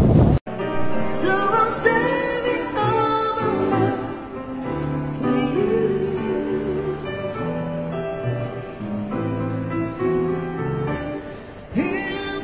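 A woman singing into a microphone with piano accompaniment, her held notes wavering with vibrato. Motorcycle wind and road noise cuts off suddenly at the very start.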